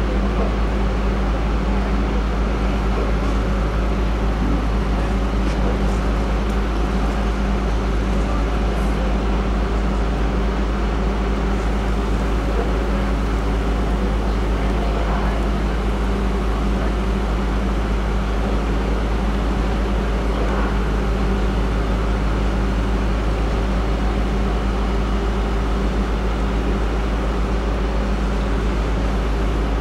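Fire apparatus engines and pumps running steadily, a constant low drone.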